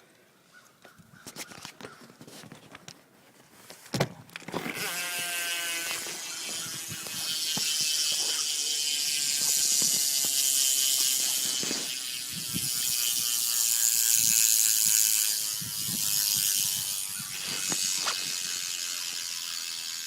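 BMX rear freewheel hub (Shadow Rant V2) ticking rapidly as the rear wheel spins freely: a fast ratcheting buzz of the pawls. It starts after a knock about four seconds in and swells and eases several times.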